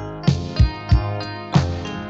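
Instrumental backing music with a steady beat of about three strokes a second, played from a 1988 children's times-tables cassette.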